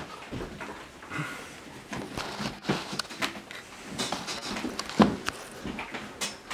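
Scattered light knocks and clicks, the sharpest and loudest about five seconds in.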